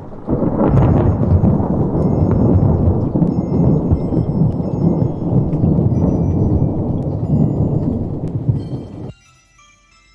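Long, loud, low thunder rumble sound effect that cuts off suddenly about nine seconds in, with faint high chiming tones above it that carry on quietly after the cutoff.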